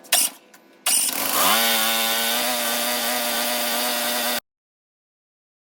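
Kawasaki engine on a zero-turn mower, running after an ignition coil replacement: a short loud clack right at the start, then about a second in the engine revs up, its pitch rising quickly and then holding at a steady high speed, and cuts off suddenly near the end.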